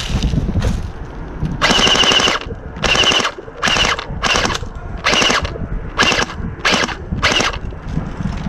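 Airsoft rifle firing on full auto in about eight short bursts, each under a second, with brief pauses between them. Wind buffets the microphone underneath.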